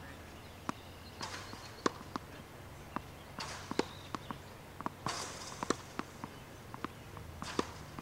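Tennis balls struck by a racket and bouncing on a hard court: a string of sharp, irregular pops, with short scuffing sounds between them from shoes on the court surface.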